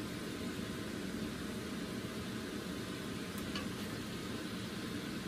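Steady, even noise at a stovetop where shrimp are cooking in tamarind sauce in a frying pan, with one faint utensil tick about three and a half seconds in.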